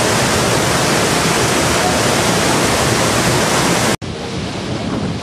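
Floodwater rushing loudly and steadily past a water-level gauge post. About four seconds in it cuts off abruptly, giving way to a quieter steady rush.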